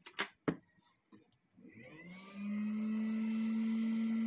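A few sharp clicks, then a handheld heat gun switched on: its fan motor spins up over about a second into a steady hum with a rush of air. It is heating the edge of an iPhone 7 Plus screen to soften the display adhesive.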